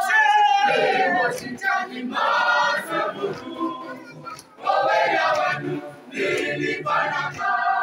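Mixed choir of men's and women's voices singing together in phrases, with a brief pause about four seconds in.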